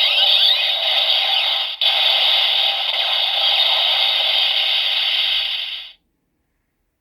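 Electronic sound effect from a Kamen Rider Ghost transformation-belt toy played through its small speaker: a steady hissing synthesized whoosh with sweeping tones. It breaks off briefly about two seconds in and cuts out suddenly about six seconds in.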